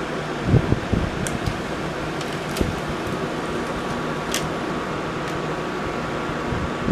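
Steady fan-like hum, with a few low handling thuds near the start and several light clicks, as of small parts or tools being handled.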